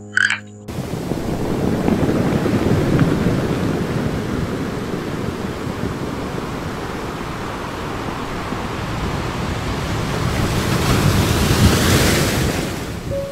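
Ocean surf washing onto a beach: a steady rushing noise that swells about two seconds in and again near the end.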